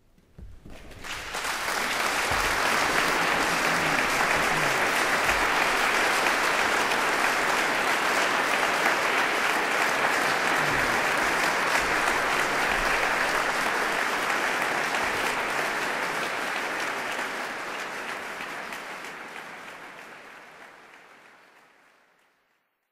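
Concert audience applauding, swelling up within the first two seconds, holding steady, then fading away over the last several seconds.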